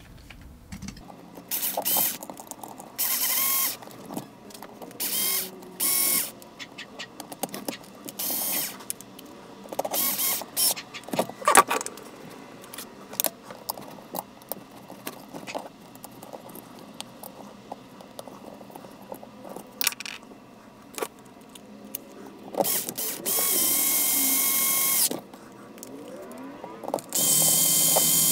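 Cordless electric screwdriver driving screws back into an RC rock crawler's axle case and skid plate in short runs of about a second, repeated several times, with a longer run of about two seconds near the end. Small clicks and rattles of tools and parts come between the runs.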